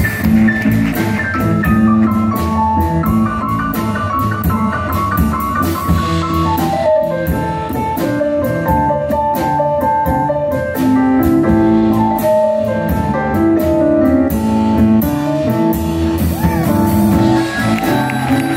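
Live blues band: an upright piano carries the lead with runs of notes, over drums and a double bass.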